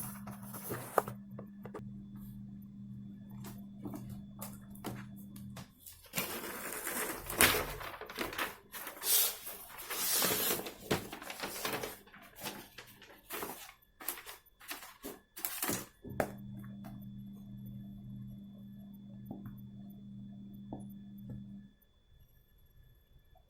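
Packaging being handled: small clicks and knocks throughout, and a long stretch of rustling and scraping in the middle. A low steady hum runs under the first few seconds, stops, returns, and cuts off near the end.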